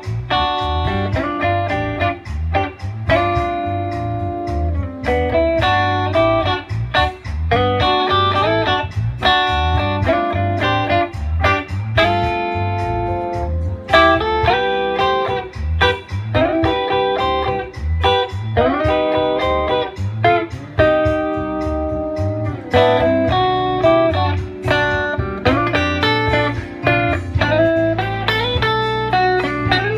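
Gibson ES-339 electric guitar played through a Gibson GA-30RVS amplifier: a blues-jazz melody line with sustained notes and string bends, over a steady bass line.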